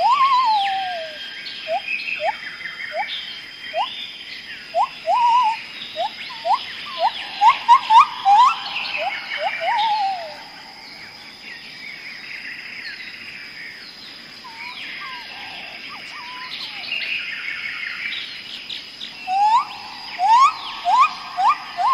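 Birds calling in a jungle chorus. One bird gives runs of short, quick rising whistles and a falling whistled trill, loud in the first half and again near the end, over a busier twittering of other birds and a steady high insect whine.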